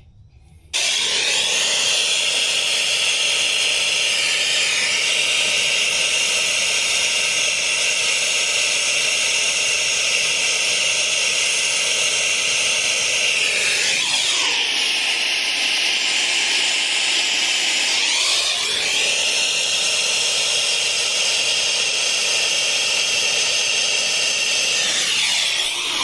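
Gas hissing hard out of an open refrigerant line set, typical of nitrogen being blown through the copper lines while the indoor end is not yet connected. The hiss starts sharply just under a second in and holds steady, sinking in pitch and swelling back up about halfway through.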